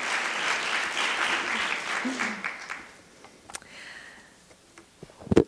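Audience applause dying away over about three seconds, followed by a few faint clicks and a sharp thump near the end.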